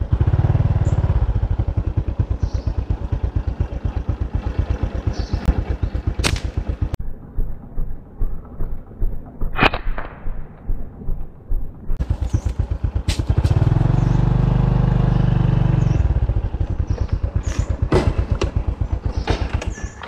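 A small engine running with a fast, even pulse. Its low hum grows stronger for a couple of seconds near three-quarters of the way through, and there is clatter and a few sharp knocks.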